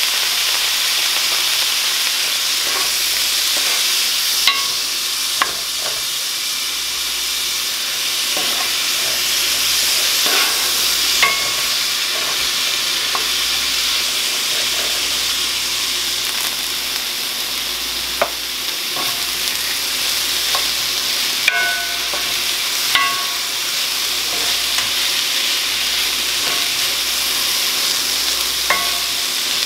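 Bell peppers and onions sizzling steadily in oil and a little water in a cast-iron skillet while a wooden spoon stirs them, with a few sharp taps of the spoon against the pan that ring briefly.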